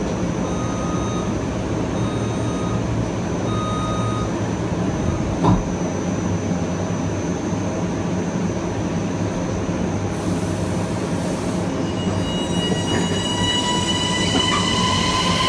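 Kawasaki M9 electric multiple unit heard from on board: a steady low rumble with three short, evenly spaced beeps early on and a single knock about five seconds in. From about twelve seconds in, the MELCO IGBT-VVVF traction inverter's stacked whine starts rising in pitch as the train accelerates.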